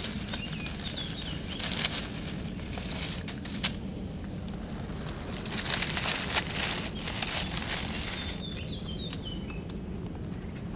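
Dry fallen leaves rustling and crackling in a few short spells as a hand digs into the leaf litter to pick morel mushrooms. A bird chirps briefly in the background twice, once near the start and once near the end.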